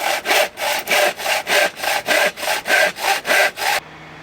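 Hand saw cutting through wood, in quick, even strokes of about three to four a second, that stop shortly before the end.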